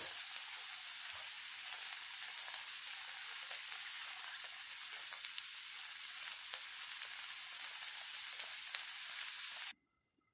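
Chopped onion and grated carrot sizzling steadily in a frying pan as they are stirred with a spatula, with faint scattered ticks. The sizzle stops abruptly near the end.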